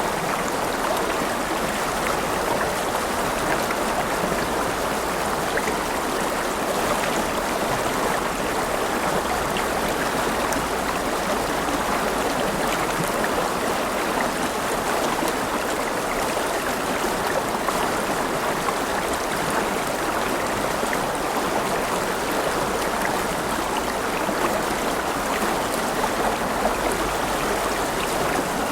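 River water flowing and babbling over stones in a steady rush.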